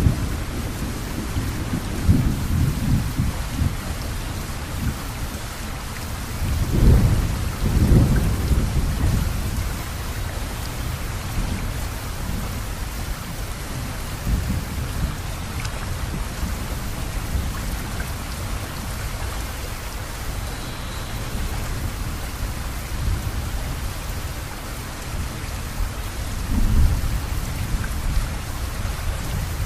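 Steady rain hiss under low, gusty rumbling that swells about seven to eight seconds in and again near the end.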